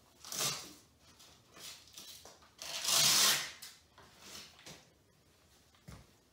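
Rustling and scraping of straps and fittings being handled at the foot support of a SureHands ceiling-lift frame, with one louder, longer rustle about three seconds in and a light knock near the end.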